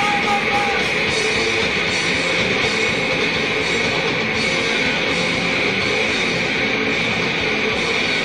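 Loud, distorted hardcore noise-rock recording: a dense, unbroken wall of distorted electric guitar and band noise.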